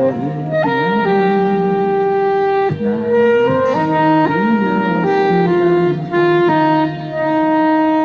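Saxophone playing a slow melody of held notes, ending on a long sustained note.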